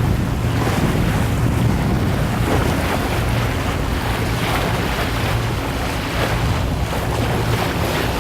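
Boat engine running steadily with a low, even hum, under wind buffeting the microphone and the rush of water.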